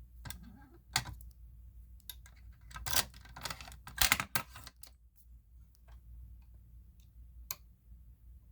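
Scattered sharp clicks and knocks, bunched about three to four and a half seconds in with a single one near the end, from hands working a fire alarm pull station after a pull failed to set off the horn. No horn sounds.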